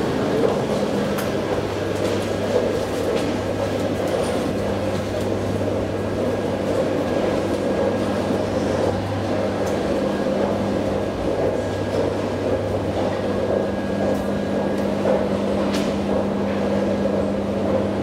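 Steady mechanical hum and drone of a 1974 KONE traction elevator, heard from inside the cab, with a few light clicks.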